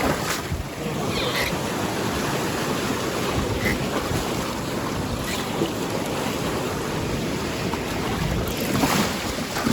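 Steady sea surf and wind, with wind buffeting the microphone.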